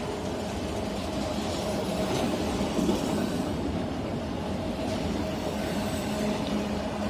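Freight train of autorack cars rolling past close by, a steady rumble of steel wheels on rail.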